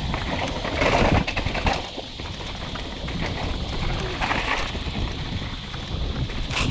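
Mountain bike rolling fast down a dirt singletrack: tyres on dirt and the bike rattling over bumps, with steady rumble from wind on the microphone. Two brief louder rushes come about a second in and just after four seconds in.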